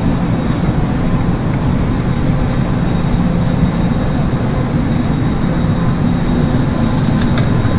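Steady low rumble of an airliner cabin's air-conditioning and ventilation during boarding, with faint steady tones above it.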